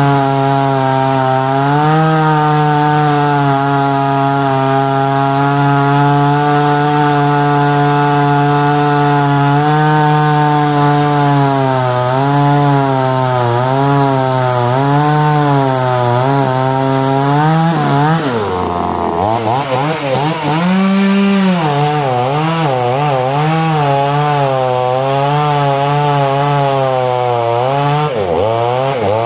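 Newwest 258 small two-stroke chainsaw running at full throttle while cutting into a log, its engine note wavering up and down as the chain bites into the wood. The engine speed drops sharply about two-thirds of the way through, then picks back up for the next cut.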